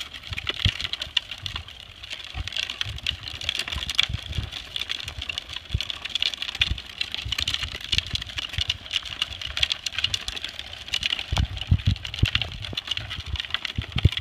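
Hard plastic wheels of a child's Big Wheel tricycle rolling over rough asphalt: a steady rattling clatter, with low thumps throughout.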